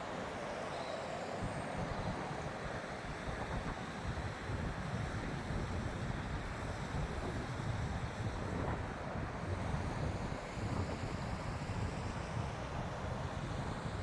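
Wind buffeting the phone's microphone, an uneven low rumble over a steady outdoor hiss.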